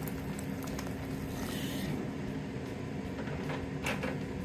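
Ninja Speedi air fryer running, its fan giving a steady hum with a constant low tone. A brief hiss comes about a second and a half in, and a single click near the end.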